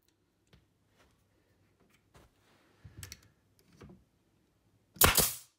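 Pneumatic finish nailer firing once with a sharp crack about five seconds in, driving a finishing nail through a wooden shim; faint clicks from handling the tool come before it.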